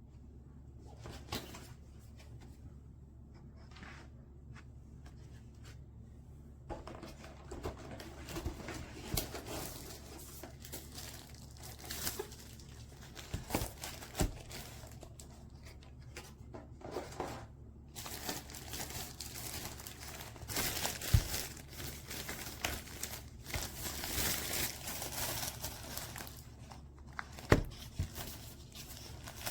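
Plastic packaging crinkling and rustling as it is handled, with a few sharp knocks. It is quiet for the first six seconds, then the rustling runs irregularly through the rest.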